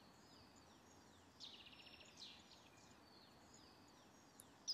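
Faint woodland birdsong: a songbird's short phrases of quick falling notes, the clearest about a second and a half in, over a soft steady hiss.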